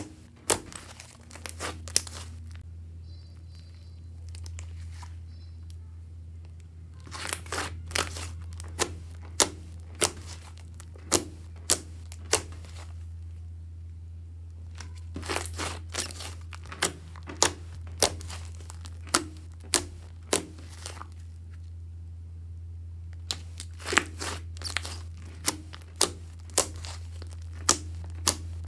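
Thick slime with soft clay mixed in, worked by hand: kneading and poking make clusters of sharp, sticky clicks and pops, with quieter pauses while it is stretched. A steady low hum runs underneath.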